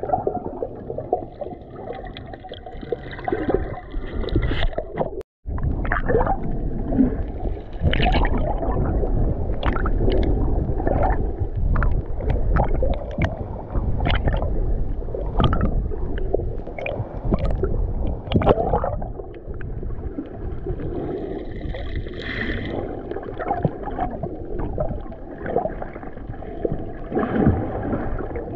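Muffled underwater sound of snorkelers swimming: a low rumble of moving water with bubbling and scattered crackling clicks, cutting out for an instant about five seconds in.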